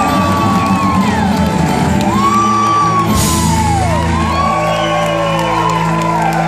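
Live band with acoustic guitars, mandolin and bass playing, under a woman's voice singing long held notes that slide down at their ends.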